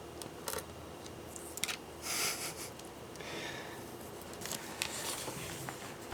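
Small screwdriver driving screws into a laptop's screen assembly: scattered small clicks and short scraping rasps, the loudest about two seconds in.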